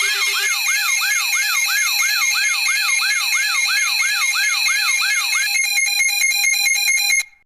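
Layered electronic alarm tones: a fast sweeping siren tone, about three sweeps a second, over steady alert tones. Near the end the sweep stops and the tones pulse rapidly on and off, then cut off abruptly.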